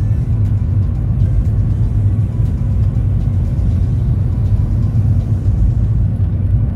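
Steady low rumble of a Boeing 737-700's passenger cabin, from the engines and airflow, with no change in pitch or level.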